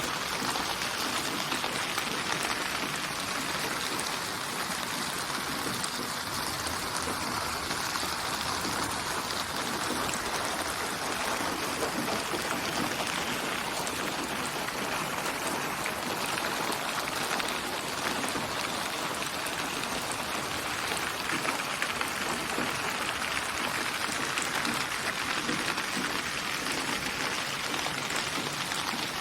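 Steady rain falling, a dense even patter and hiss without thunder or breaks, used as a white-noise sleep track.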